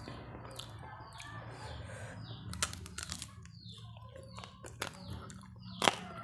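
Chewing crispy fried quail: crunches and mouth clicks, with the sharpest snap near the end.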